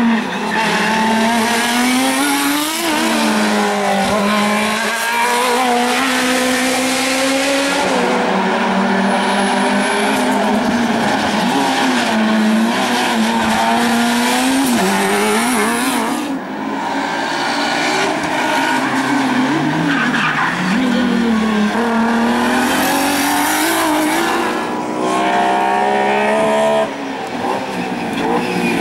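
Race-car engines revving hard as the cars come through a hairpin one after another: pitch climbs through each gear, drops off at each shift or lift, and climbs again, over and over.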